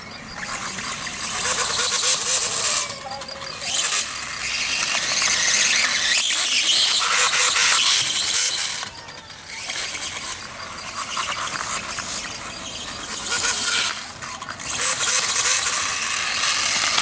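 Reely RC dirtbike's motor and gears whining at speed in long high-pitched runs. The sound drops off briefly three times as the throttle is eased.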